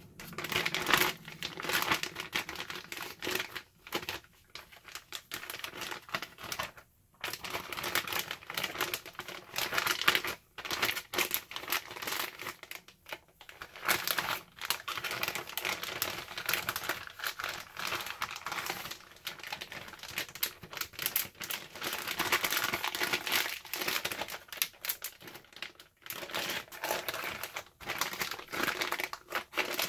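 Plastic zip-top freezer bags crinkling and rustling as pieces of raw beef are pushed into them and handled, with a few short pauses.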